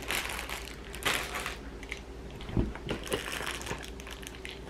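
Clear plastic packaging crinkling in bursts as it is handled and opened, with one soft thump a little past halfway.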